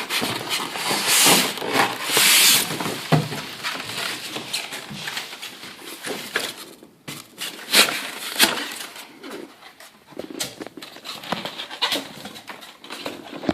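Plastic packaging rustling and crinkling as the vacuum body is unwrapped, with scattered sharp clicks and knocks of handling. The rustling is heaviest in the first few seconds and turns patchier later.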